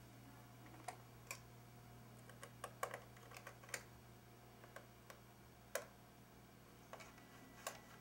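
Small screwdriver unscrewing the three tiny screws of a 15-inch MacBook Pro's RAM access door: faint, irregular clicks and ticks of the tool on the screws and the metal case.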